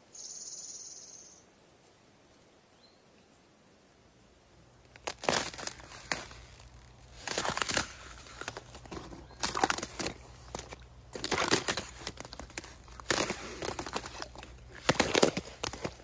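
A wellington boot stepping on a frozen puddle, the thin ice crunching and cracking under it in about a dozen irregular crunches that start about five seconds in.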